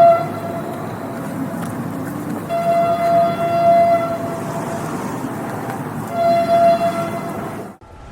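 Train horn sounding in blasts over the steady rumble of a moving train: one blast ending just as it begins, a longer one of about a second and a half near three seconds in, and a shorter one around six seconds. The sound cuts off abruptly near the end.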